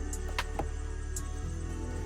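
Background music: a steady bass with sustained tones, with a few faint clicks on top.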